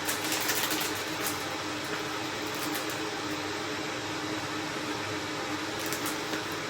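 A small electric household appliance running steadily, a low hum under an even hiss, with a few light clicks near the end.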